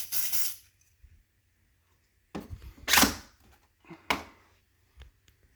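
Smoke Sabre aerosol smoke-detector test can spraying in short hissing bursts: one trails off at the start, a longer one of about a second comes near the middle and a short sharp one follows just after, then a faint click.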